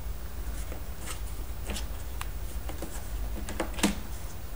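Light clicks, taps and rustles of plastic Play-Doh tools and dough pieces being handled, with the sharpest click near the end, over a steady low hum.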